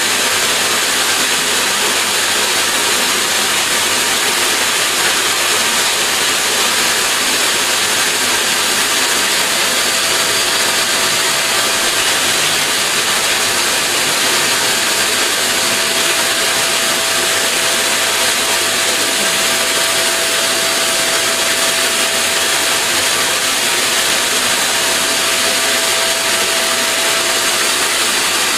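Vacuum cleaner running steadily: a loud, unchanging rush of noise with a faint steady whine held through it.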